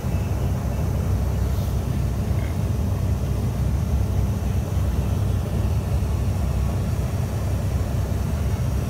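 1998 Dodge Ram 1500 pickup engine idling steadily at about 900 rpm, a constant low rumble heard from inside the cab.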